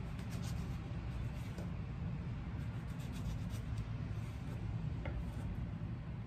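Kitchen knife slicing tomato on a wooden cutting board: a few soft cuts and light taps of the blade on the wood, over a steady low hum.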